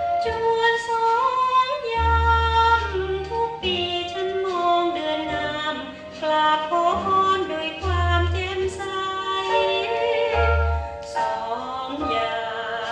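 Thai female vocalist singing a slow sentimental song with instrumental accompaniment, played back from CD on a hi-fi sound system. The voice carries a wavering melody over the band, with deep bass notes held a second or so at a time.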